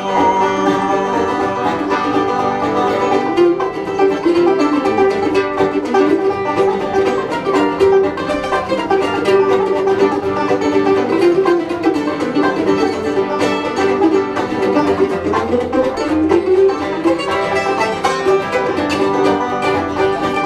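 Live acoustic band playing an instrumental break: banjo picking over strummed acoustic guitar, with a fiddle carrying a sliding melody line.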